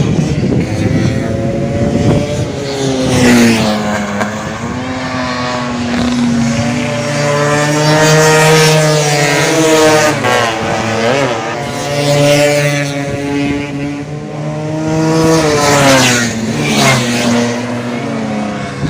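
Tuned two-stroke Vespa scooter engine running hard at high revs, its pitch climbing and dropping several times.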